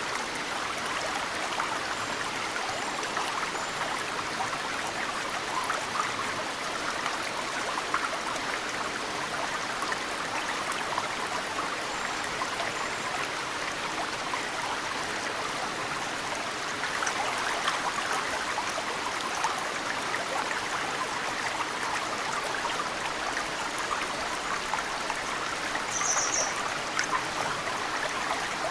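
Mountain stream flowing steadily, with snowmelt dripping into it. A few faint, short, high bird chirps sound over it, and a clearer one comes near the end.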